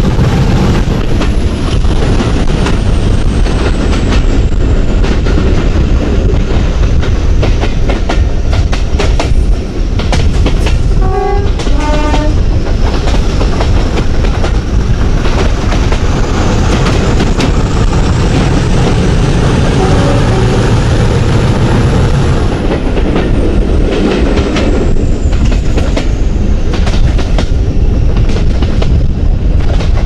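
English Electric 16CSVT V16 diesel engine of a Class 50 locomotive working hard under full power just ahead, with wheels clattering over the rail joints, the din echoing in a tunnel. A brief two-tone horn sounds about eleven seconds in.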